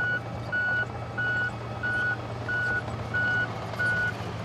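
Reversing alarm of a heavy diesel vehicle at a quarry or mine, beeping steadily at one pitch about one and a half times a second, over the vehicle's low engine hum.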